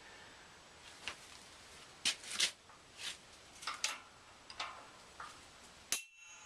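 A shop press setup under heavy load gives off a string of irregular sharp ticks and creaks, about nine over five seconds, the loudest around two seconds in and at the end. This is the press pin bending under strain, a warning that the press is about at the limit of pressure it can take.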